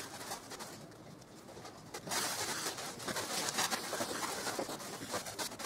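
Foil-wrapped fiberglass insulation sheet crinkling and rustling as it is handled and pressed against a door, growing louder and denser from about two seconds in.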